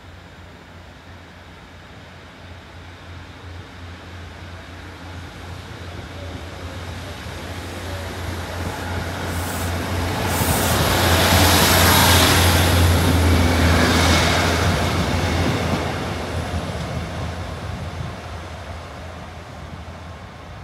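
Class 156 Sprinter diesel multiple unit departing and passing close by. Its underfloor diesel engines run with a steady low drone, and the wheels run on the rails. It grows louder, passes about halfway through, then fades as it draws away.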